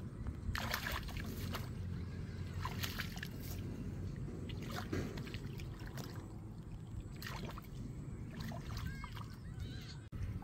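Shallow muddy water in a flooded rice paddy sloshing and splashing as someone wades through it and gropes in the mud with bare hands, with a splash every second or two.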